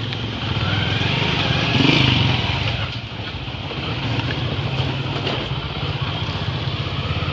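Motorcycle engine running steadily while being ridden, heard from the rider's seat along with road and wind noise. The engine gets louder about two seconds in, eases off a second later, then holds an even note.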